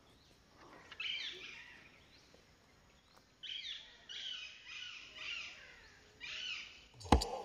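Bird calls in forest: several short bursts of high, pitch-bending chirps with pauses between them. Near the end, loud music with sharp percussive beats cuts in.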